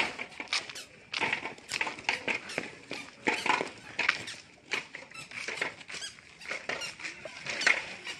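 Footsteps on a gritty concrete road: a quick, irregular run of short scrapes and squeaks, several each second.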